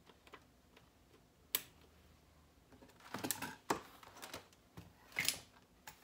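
Cables and connectors being handled and plugged into the back of a desktop computer case: a sharp click about a second and a half in, then two clusters of clicks and rattles.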